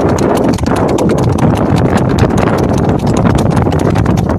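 Hooves of a Mangalarga horse striking asphalt in a fast esquipado, a smooth four-beat lateral gait: a rapid, even run of hoofbeats.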